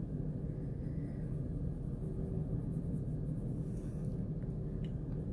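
Steady low background rumble, with a couple of faint light ticks near the end.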